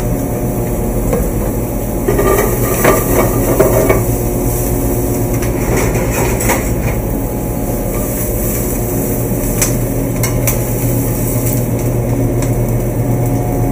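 Metal spoon and pans knocking and clanking against each other in a few sharp, scattered knocks as polenta is served and a sauté pan is handled. Underneath runs the steady low hum of commercial kitchen ventilation.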